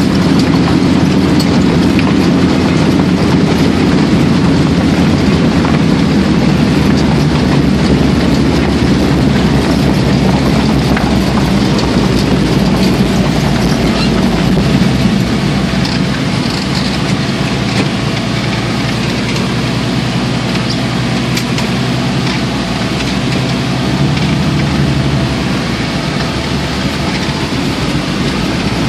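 1949 Bombardier B12 snow bus travelling across the ice, heard from inside its cab: a loud, steady drone of engine and tracks, easing slightly about halfway through.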